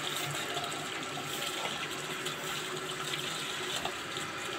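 Water running steadily from a hose onto a heap of wet clothes as they are rinsed and wrung by hand.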